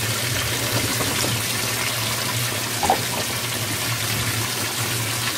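GE top-loading washer (model GTW330ASK4WW) filling: streams of water pour from the fill spout into the wash basket with a steady splashing rush and a low hum beneath. There is one brief higher-pitched sound about three seconds in.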